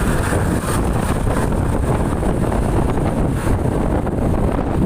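Wind buffeting the microphone, with a steady vehicle rumble underneath.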